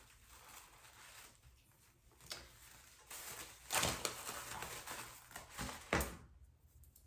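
Intermittent rustling and handling noise from unpacking a wig, with a few short louder rustles or bumps about two, four and six seconds in.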